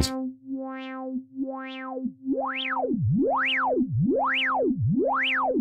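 Korg DW-8000 synthesizer holding a low note through its analog filter, with resonance turned up high and the cutoff swept up and down by a triangle LFO. A resonant peak glides rising and falling about once a second; it is faint for the first two seconds, then strong and even.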